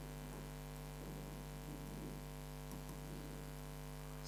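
Steady electrical mains hum with a stack of buzzing overtones over a faint hiss.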